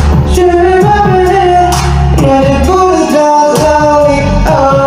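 A pop song with a singing voice over a bass line and drum beat.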